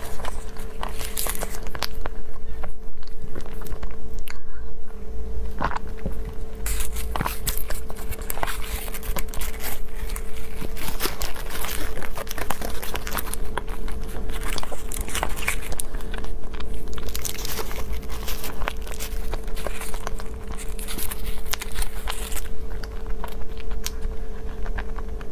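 Close-miked eating: a paper baking liner crinkling and tearing as it is peeled from a soft green pastry, with bites and chewing. A faint steady hum runs underneath.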